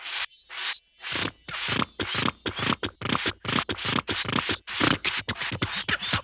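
Cartoon sound effect of rapid, repeated scratching strokes, a few slow ones at first and then coming quickly, several a second, from about a second in.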